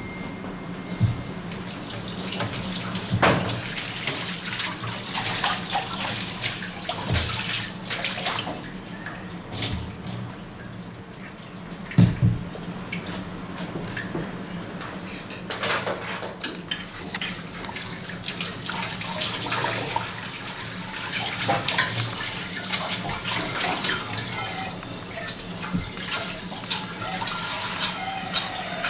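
Tap water running into a stainless-steel sink while steel plates, pots and utensils are scrubbed and rinsed, with frequent sharp clanks of metal dishware knocking together. The loudest clank comes about twelve seconds in.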